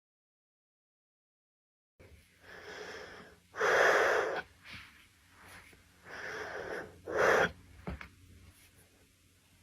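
A person breathing out heavily in several rough breaths while being walked on, the loudest two about four and seven seconds in, with one short sharp click near the end.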